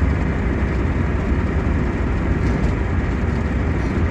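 VW Golf Mk1 being driven at road speed, heard from inside the cabin: a steady, even mix of engine, tyre and wind noise with a strong low drone.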